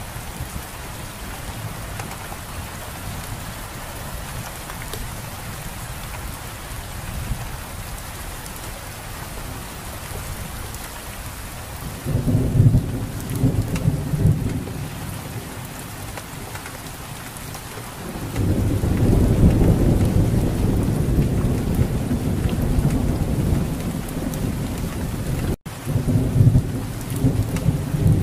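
Steady rain falling, with low thunder rumbling about twelve seconds in for a few seconds, then again from about eighteen seconds on, louder than the rain. The sound cuts out for an instant near the end.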